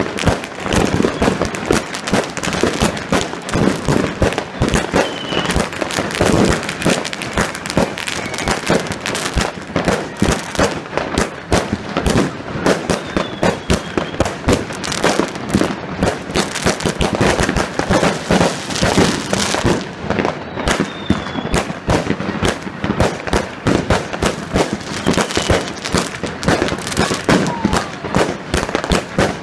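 Consumer fireworks battery firing in rapid succession: a continuous, dense stream of cracks and bangs as shots launch and burst overhead, with no pause.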